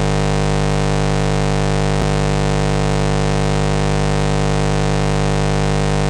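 Steady electrical mains hum with a buzzing stack of overtones over a constant hiss, the noise of the nest-box webcam's audio feed. A faint click about two seconds in.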